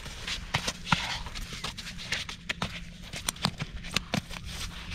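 Irregular sharp slaps and thumps of a landed silver arowana flopping on wet sand, over a faint steady low hum.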